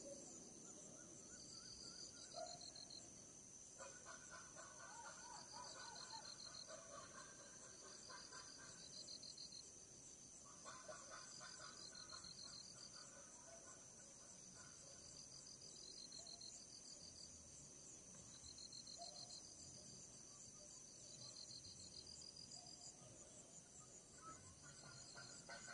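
Faint night chorus of crickets and other insects: a steady high trill, with a pulsing chirp repeating every few seconds and lower pulsed calls that come and go.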